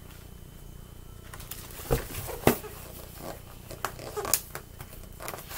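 A hardcover picture book being handled and leafed through: page and paper rustling, with two sharp knocks about two seconds in and scattered clicks after.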